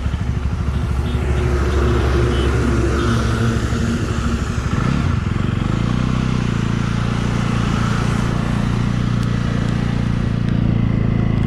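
Jawa 42 motorcycle's single-cylinder engine running, its note changing about halfway through as the bike sets off, with heavy rain hissing.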